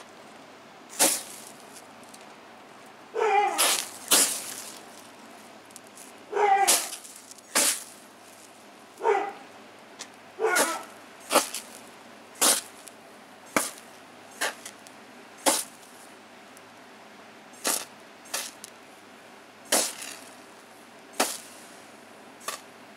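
A trigger spray bottle squirting water onto magnesium shavings burning in a cast iron skillet, in short, sharp bursts about once a second as the burning metal reacts to the water. Mixed in among the first several bursts are a few falling, whine-like cries.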